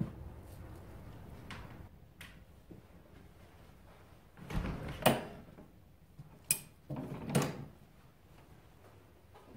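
Knocks and scrapes of a plastic oil drain container being pulled out from under a workbench and carried off, with a few sharp thumps, the loudest about halfway through.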